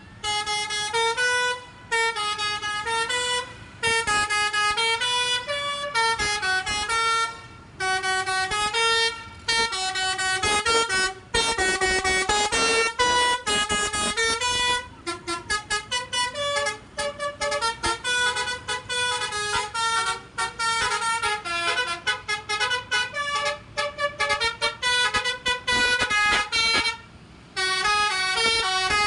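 Bus "telolet" multi-tone musical air horn playing melodic phrases of stepped notes, each phrase a second or two long with short breaks between. About halfway through it switches to a rapid run of short staccato toots, then pauses briefly near the end and starts another phrase.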